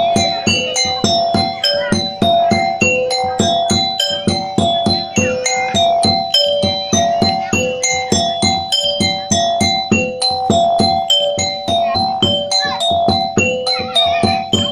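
Music: a fast, repeating melody of short struck notes, about four to five a second, over a steady beat.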